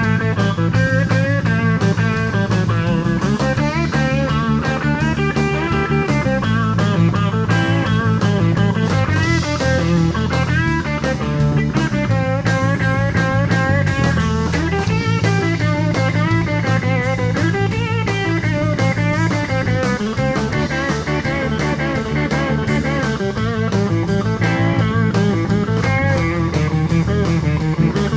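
Live blues-rock trio playing: an electric guitar lead with bent, wavering notes over electric bass and a drum kit, with no vocals.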